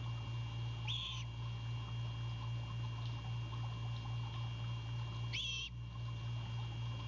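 Great horned owlet giving two short, high, wavering begging calls about four seconds apart, over a steady low electrical hum.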